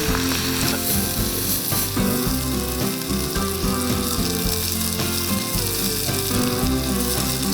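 Background music with a steady beat and shifting notes, over food sizzling on a grill above a wood fire.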